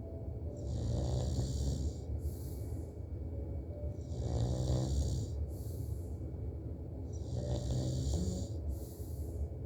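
A man snoring in a slow, even rhythm: three rattling snores, each followed by an airy breath, about every three and a half seconds.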